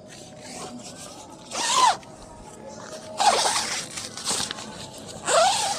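Nylon tent door zipper pulled in four short strokes, each a quick zip whose pitch rises and falls.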